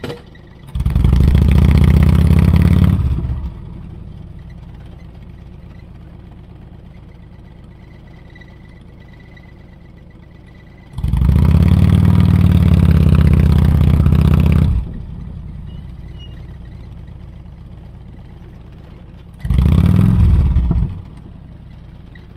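Harley-Davidson V-twin motorcycle engine idling, opened up three times as the bike pulls away and rides on: once near the start, once about halfway through, and briefly near the end. Wind rushes on the microphone while the bike is moving.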